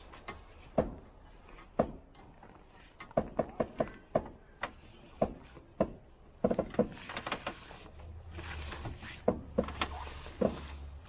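Irregular knocks and clicks, several a second at times, with a low hum joining in about eight seconds in.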